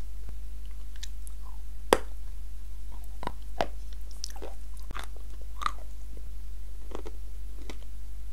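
Close-miked chewing of a soft marshmallow with cream: scattered wet mouth clicks and smacks, with one sharper click about two seconds in, over a steady low hum.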